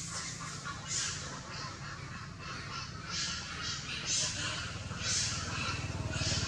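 Macaques giving short, harsh calls, roughly once a second, over a steady low hum.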